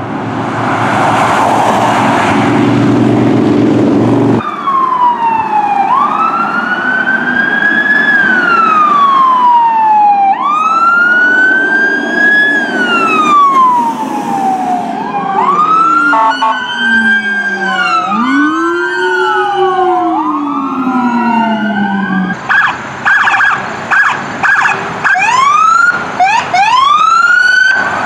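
A passing emergency vehicle's engine and road noise, then a wail siren rising and falling about every four to five seconds. Partway through, further sirens overlap it, one lower-pitched that winds up quickly and falls slowly. Near the end it changes to a run of short, chopped blasts.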